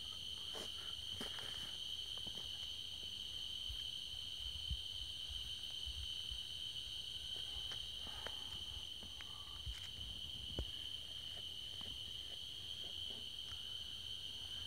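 Steady, high-pitched chorus of night insects, an unbroken trill. A few faint clicks and knocks sound over it.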